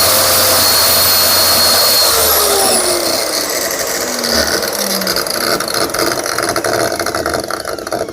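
Lotus corded track saw's motor and blade running at speed, then winding down after switch-off: a steady whirr that falls in pitch and slowly fades over several seconds.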